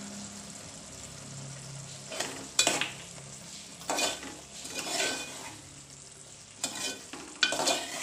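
Steel spoon stirring thick cashew-and-masala curry in an aluminium pan, in about six separate scrapes that begin about two seconds in, over a low sizzle of the curry cooking on the gas.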